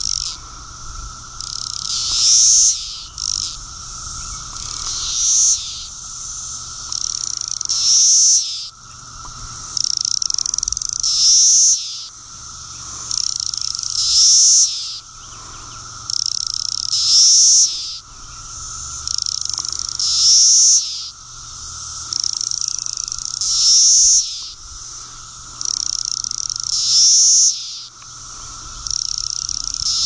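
Brood X periodical cicadas calling: a loud, high call swells and then drops away about every three seconds, over a steady drone from the surrounding chorus.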